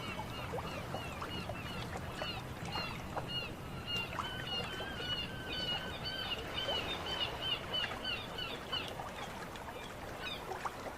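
Many birds calling in quick, short repeated chirps over a low, steady wash of water.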